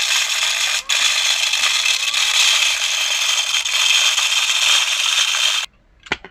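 Small desktop vacuum cleaner running, a steady whirring hiss with a rattle in it, cutting off abruptly near the end.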